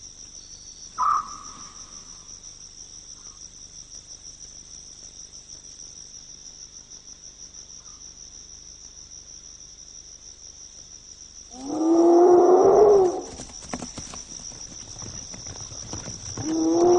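Crickets trilling steadily at night. In the latter part, two loud, drawn-out animal calls, each just over a second long, ring out about four seconds apart, with faint rustling between them.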